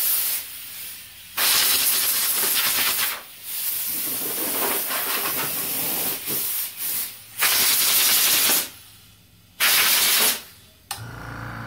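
Compressed air blasting from an air blow gun, hissing in repeated bursts, some brief and some a couple of seconds long, with pauses between, drawn from an auxiliary tank charged to about 60 psi. A steady low hum comes in near the end.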